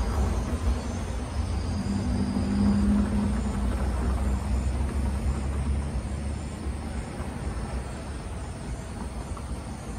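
Road traffic crossing the railroad tracks: cars and pickups driving past with a low rumble, one vehicle's hum standing out about two seconds in, the sound easing off over the last few seconds.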